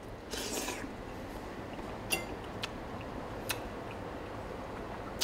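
A man quietly eating a forkful of sea bream carpaccio: a short noisy intake as the bite goes into his mouth, then a few faint clicks while he chews.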